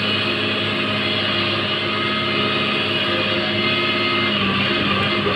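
Steady drone of a cargo landing barge's diesel engines as the ship gets under way.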